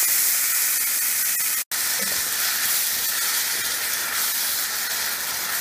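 Onion-tomato masala sizzling in a frying pan with a steady hiss. It cuts out for an instant a little under two seconds in, then carries on sizzling, now with yogurt stirred in and steaming.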